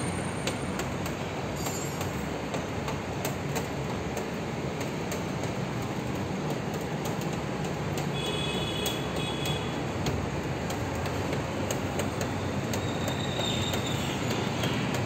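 Steady rumbling noise with faint clicks throughout, and a brief high thin tone about eight seconds in and again near the end.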